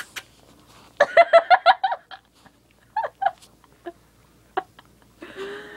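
A person giggling in a quick run of laughs about a second in, with a few shorter laughs after, over the wet smacking and licking clicks of a small dog eating peanut butter.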